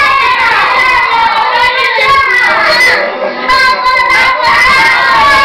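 Children singing in high voices, loud and lively, with a brief dip about three seconds in.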